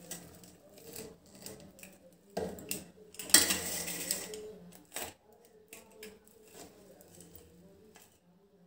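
Pizza cutter wheel rolling through a crisp sooji pancake and scraping on a stainless steel plate, in a few short strokes. The loudest is a grating pass about two and a half to four seconds in, followed by a sharp click near five seconds.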